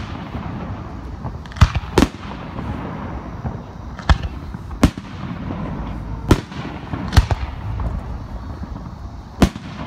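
Aerial fireworks shells bursting close by: about seven sharp bangs at uneven intervals, with a low rumble between them.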